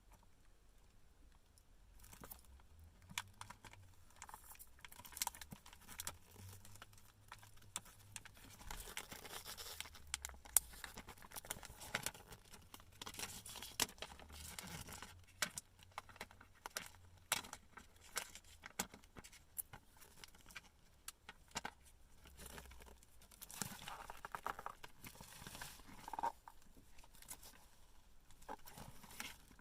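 Plastic wrapping on a phone box being peeled and torn off, crinkling, with scattered light taps and clicks as the box is handled.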